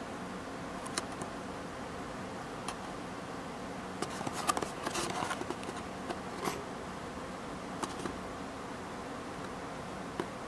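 Fingers shifting their grip on a small cardboard box: a few light clicks and a short cluster of crackly rustles about four to five seconds in, over a steady background hiss.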